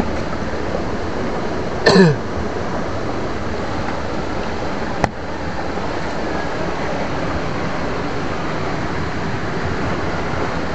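A steady rushing hiss, with a short vocal sound falling in pitch about two seconds in and a single sharp click about five seconds in.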